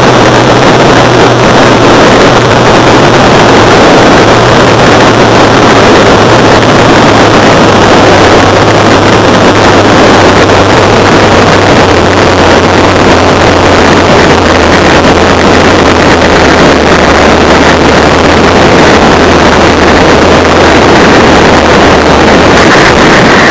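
Loud wind rushing over the microphone together with the steady hum of a zipline trolley running along its steel cable at high speed, about 100 km/h. The low hum drops slightly in pitch about halfway, and everything cuts off suddenly at the end as the ride stops.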